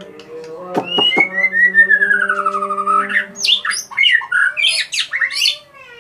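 White-rumped shama (murai batu) singing: a couple of sharp clicks, then a long trilled phrase falling steadily in pitch, then a rapid burst of varied high whistled notes that stops shortly before the end.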